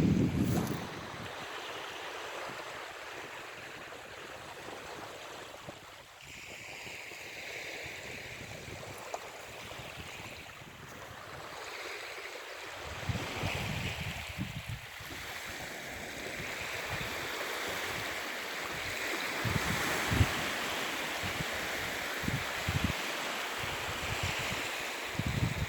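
Sea waves washing in: a steady hiss of surf that swells and eases, with scattered low thumps from about halfway on.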